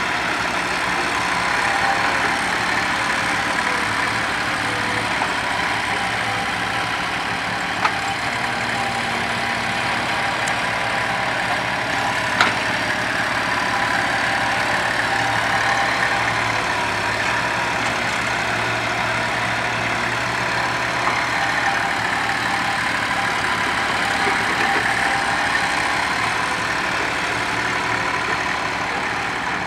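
Old mini excavator's diesel engine running steadily as it digs and moves soil, with a few sharp knocks, the loudest about twelve seconds in.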